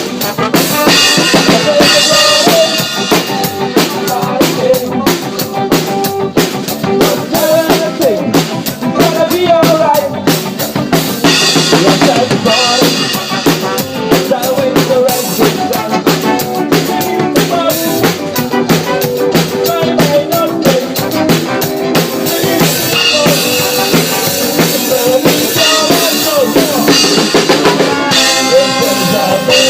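Band music with a drum kit keeping a steady beat on snare and bass drum under a melodic line.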